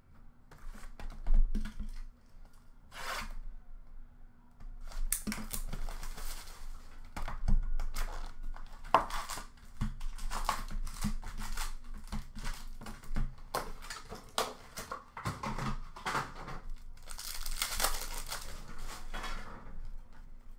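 Hockey card packs being torn open by hand, their wrappers crinkling in a run of short rips, after a few light knocks and rustles as packs are picked up.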